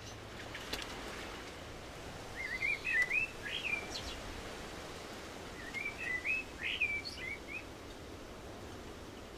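Forest ambience with a steady low background hiss, and a songbird singing two short phrases of quick rising and falling notes, about two seconds in and again about six seconds in.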